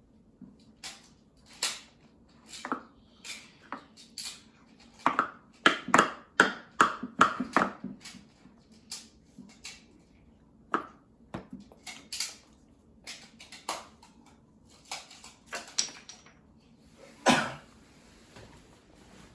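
Irregular sharp clicks and knocks, a quick cluster of them about five to eight seconds in and one louder knock near the end, over a faint low hum.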